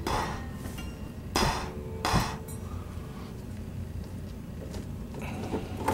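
Hard plastic dinosaur toy figures knocking and clattering against each other as they are set down among the others: three sharp knocks in the first couple of seconds, then a few lighter taps near the end.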